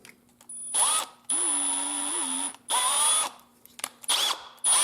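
Electric drill with a 3/16-inch bit run in about five short bursts, the motor speeding up and slowing down with the trigger. It is opening up the hole in a replacement door handle's insert piece so the linkage rod will seat.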